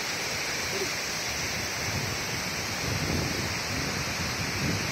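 Steady roar of a large waterfall's rushing water, with gusts of wind buffeting the microphone.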